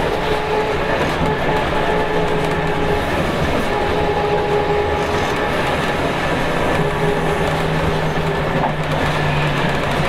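Scania K280UB city bus on the move, heard from inside the cabin: its rear-mounted 9.3-litre inline five-cylinder turbo diesel and ZF six-speed automatic give a steady drone with a faint whine over road noise.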